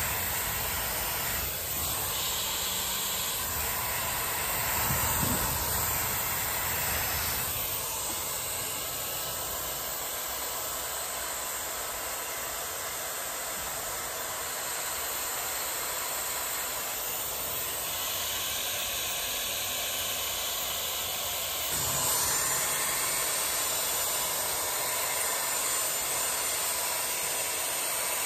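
Dyson Airwrap hair styler with the curling barrel blowing air on a lower airflow setting, a steady rushing hiss with a faint steady whine. It gets louder about three quarters of the way through.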